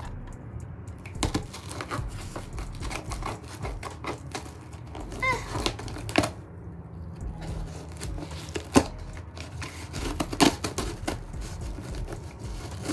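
A cardboard shipping box being handled and worked open: irregular clicks, taps and crinkling of cardboard and packing tape, with a couple of sharper knocks in the second half.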